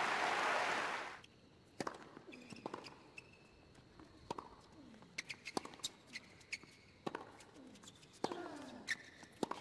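Crowd applause that cuts off about a second in, then a tennis rally: racket strikes on the ball about once a second, several followed by a player's short grunt falling in pitch.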